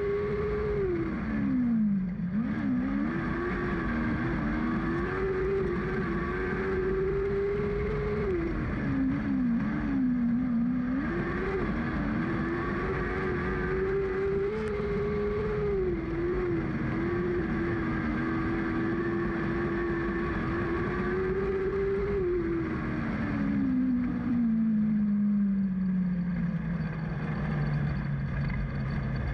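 Lightning sprint car engine heard from on board, running hard and easing off twice as it goes through corners. Over the last several seconds its pitch winds steadily down as the car slows, over a constant rush of wind and engine noise.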